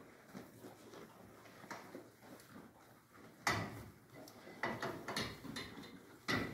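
Dairy cows eating hay at a steel headlock feed barrier: steady rustling and tearing of hay, with the barrier's metal rails knocking and rattling as the cows push against them, loudest about halfway through and again near the end.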